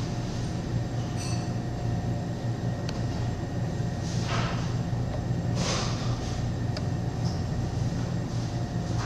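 Steady low mechanical hum, like a motor or fan running, with a few brief hissy rustles about four and six seconds in.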